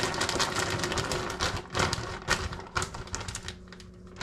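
Frozen cheese being poured out of a plastic bag into a plastic storage container: a fast, dense run of crinkling and small clattering clicks that thins out to scattered clicks about three and a half seconds in.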